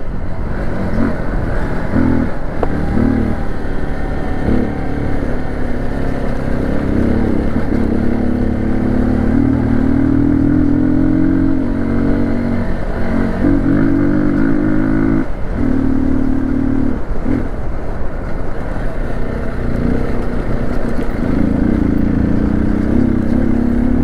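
Hero XPulse 200's single-cylinder engine running while riding. Its note rises and falls, dipping several times with throttle and gear changes.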